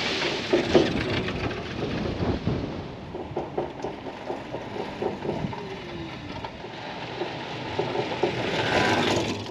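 Electric scooter towing a small trailer over an asphalt road: a crackly rumble of tyres with many small rattles and clicks, growing louder near the end as it comes close.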